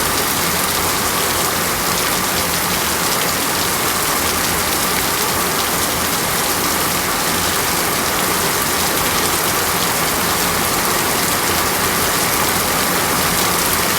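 Heavy rain falling steadily, a dense even hiss of drops splashing on hard wet surfaces.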